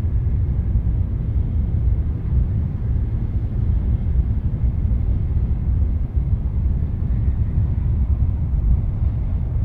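Shinkansen bullet train running at speed, heard from inside the carriage as a steady low rumble.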